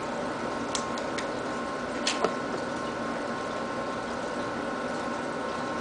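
Aquarium pump running with a steady hum and a couple of faint whining tones, with a few sharp clicks in the first two or three seconds, the loudest a little after two seconds in.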